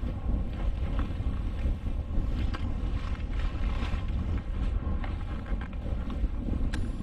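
Wind buffeting the microphone of a skier's camera during a run through powder, a steady low rumble, with the hiss of skis through the snow and scattered light crunches.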